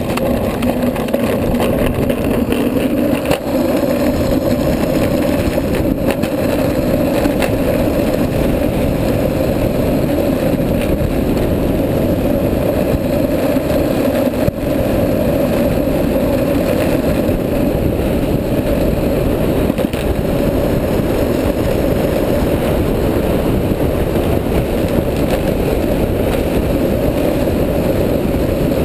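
Street luge's urethane wheels rolling fast on asphalt, a steady hum, under heavy wind rushing over a helmet-mounted camera at downhill speed.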